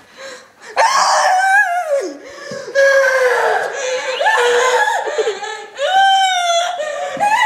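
Kids laughing hard and shrieking, in loud, high-pitched, drawn-out cries that swoop up and down in pitch.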